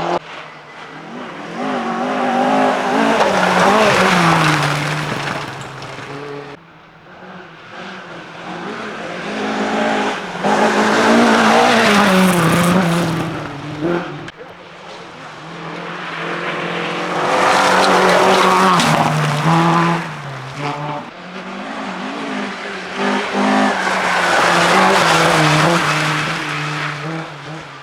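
Rally cars at full throttle passing one after another, engines revving up and falling back through gear changes. The sound builds and fades four times as each car goes by.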